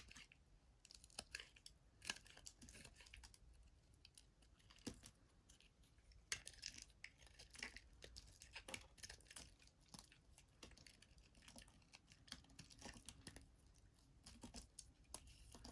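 Quiet, irregular crackling and clicking of a blade cutting through dry soap, with a few sharper snaps.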